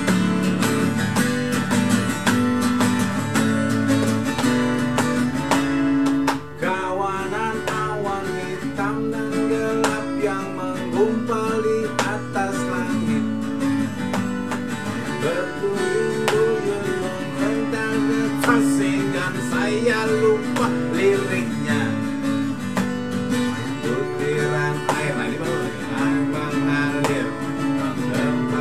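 Acoustic guitar playing the chords of a song, with a wavering higher melody line over it from about eight seconds in.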